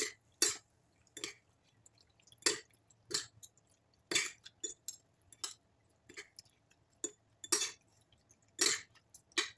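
Metal fork and spoon clinking against a glass bowl while tossing grilled red pepper strips: about a dozen short, sharp taps at uneven intervals.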